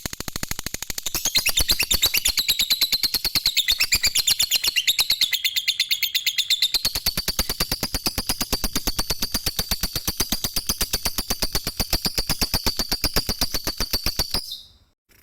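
Lovebird singing 'ngekek': one long, unbroken, very fast chattering trill, a rapid string of harsh notes over a high whistle, which breaks off abruptly near the end.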